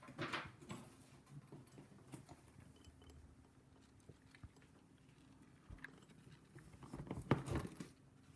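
Faint handling noise of small padlock pins being moved about by fingers: light clicks and scratching, with a louder bout of handling about seven seconds in.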